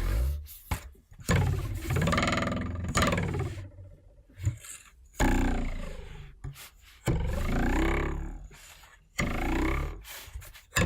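A ruler twanged against a desk edge, about six times in a row. Each twang starts with a loud buzzing vibration that rises in pitch as it fades.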